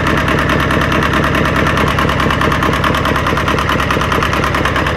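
Yanmar inboard marine diesel engine running steadily at an even speed.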